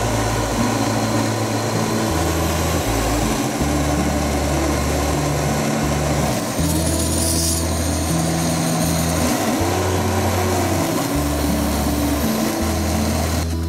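Background music with a stepping bass line over the steady rushing of a household electric fan at its top setting blowing straight onto a lit portable gas stove. The rushing drops away near the end.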